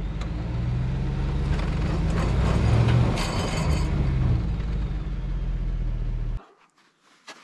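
Chevrolet Silverado Z71 pickup's engine revving as it tries to drive out of deep snow onto MaxTrax recovery boards, with the wheels spinning and the truck not getting free. It swells to its loudest about three seconds in and cuts off suddenly about a second before the end.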